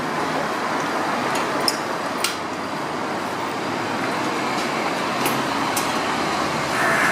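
Steady city road traffic, with two short clicks in the first half; right at the end a hooded crow starts a harsh caw.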